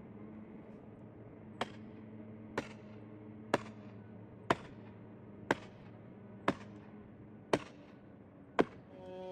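Eight sharp strikes, evenly spaced about a second apart, over a steady low hum. Right at the end a chainsaw engine starts to rise.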